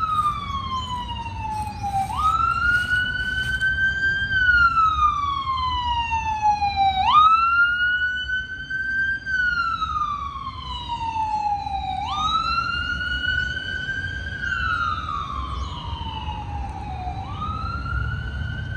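Fire-rescue ambulance's electronic siren on a wail: each cycle jumps up in pitch, holds for a couple of seconds, then slides slowly down, repeating about every five seconds. A low rumble of vehicle engines runs underneath.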